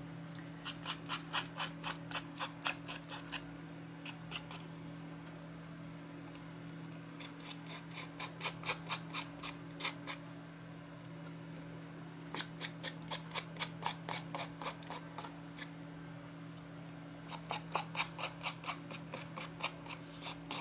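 Ink pad dabbed face-down onto paper and card in quick runs of light taps, about three a second, with short pauses between runs, darkening the edges of the work.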